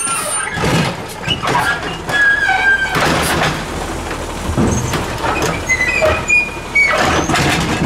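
Heil DuraPack 7000 automated side-loader arm on a CNG Peterbilt 320 garbage truck lifting and dumping a wheeled trash cart into the hopper, with the truck's engine running underneath. Repeated clanks and knocks of the arm and cart, with a few short squeals.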